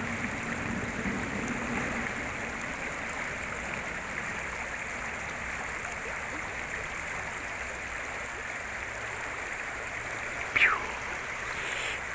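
River water rushing steadily over rocks, a constant even hiss of flowing water. Near the end a short whistle falls quickly in pitch.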